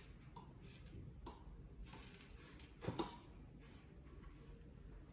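Faint handling sounds as the excess net of a lace wig cap is cut with small scissors: a few light clicks, the sharpest about three seconds in.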